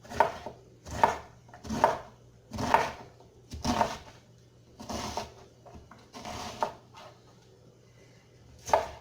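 Knife rough-chopping an onion on a cutting board, about one cut a second at first, then slower, with a pause of about a second and a half near the end.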